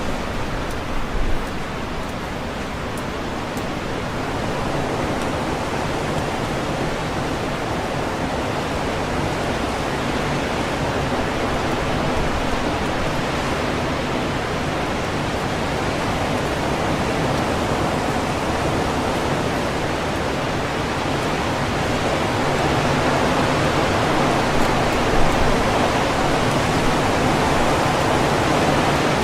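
Strong wind rushing steadily through tree leaves, a continuous rustling that grows a little louder after about twenty seconds.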